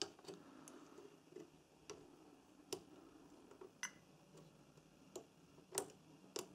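Faint, irregular light ticks of metal multimeter probe tips touching and tapping on a circuit board's component legs and solder joints, about nine in all, against near silence.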